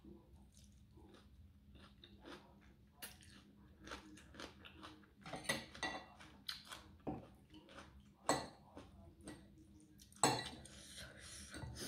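Close-up mouth sounds of chewing rice noodles in curry sauce, with a metal spoon and fork clinking and scraping on a ceramic plate, a few of the clinks sharper than the rest.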